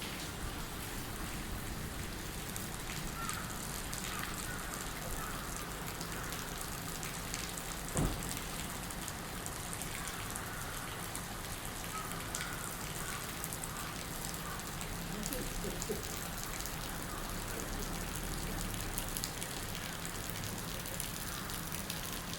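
Steady rain falling, with drops pattering and dripping onto surfaces. There is a single louder thump about a third of the way through.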